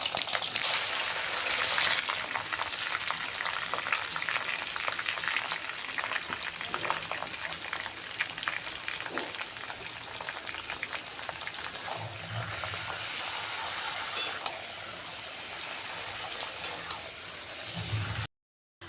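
Food frying in hot oil in a pan: a dense sizzling crackle with constant fine pops, stirred now and then. It is loudest at the start, eases off, swells again about twelve seconds in, and cuts off suddenly near the end.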